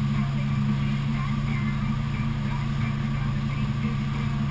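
Tow boat's engine running at a steady cruising speed, a constant low drone with the wash of the wake.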